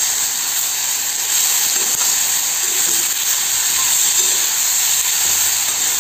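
Chopped onions, tomatoes, green chillies and ginger sizzling in hot oil in a non-stick kadai, a steady hiss as they roast for the masala.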